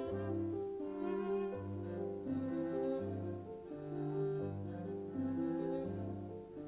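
Slow instrumental music: bowed strings holding long notes over a low bass note that returns about every one and a half seconds.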